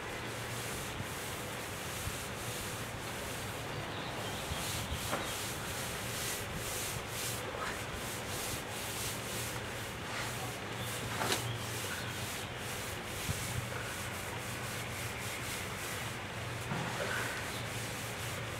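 A cloth rubbed back and forth by hand over a wooden tabletop, a steady run of scrubbing strokes at about two or three a second.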